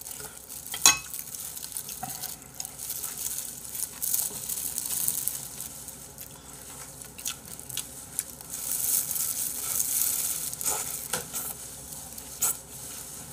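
Wet, close-up eating sounds: chewing and sucking on bone-in chicken feet, with a few sharp smacks and clicks.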